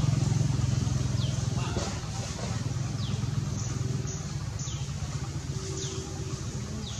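A small engine running steadily, a low fluttering rumble that drops a little after about two seconds, with short high falling chirps about once a second over it.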